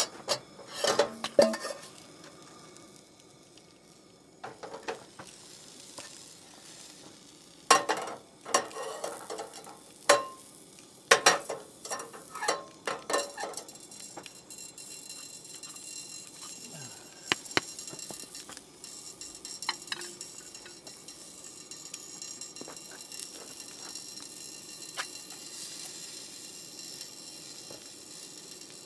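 Hot dogs sizzling in a frying pan on a two-burner propane camp stove, the sizzle turning into a steady hiss in the second half. Through the first half there are sharp clanks and clinks of a metal pot and utensils being handled.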